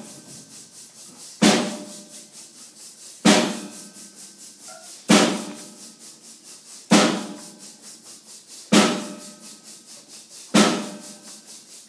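Steady percussion pattern: a loud accented hit about every two seconds, each ringing briefly, with quiet even ticks about four a second between the hits.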